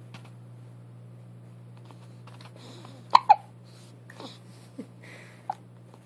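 Newborn baby hiccuping: two sharp hiccups in quick succession about three seconds in, the loudest sounds, followed by a few fainter short sounds.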